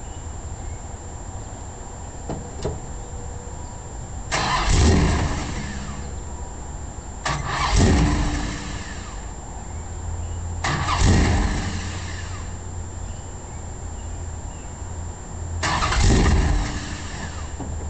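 Cammed 1969 Dodge Charger V8 idling, revved four times with sharp throttle blips that each die back down to idle.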